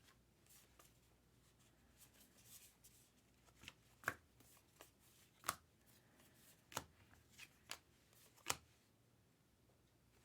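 Faint handling of trading cards: soft rustling as cards slide over one another, with about six sharp card clicks in the second half.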